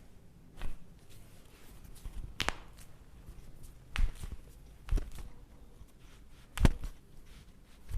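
Five sharp cracks and knocks, spread a second or two apart with the loudest near the end, during a chiropractic shoulder manipulation.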